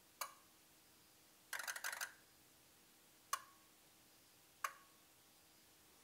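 Ford 6.0 Powerstroke diesel fuel injectors clicking during an injector buzz test: a single click, a brief rapid buzz about a second and a half in, then single clicks about a second and a half apart. With one injector unplugged, the buzz is weak and clicks are missing from the sequence.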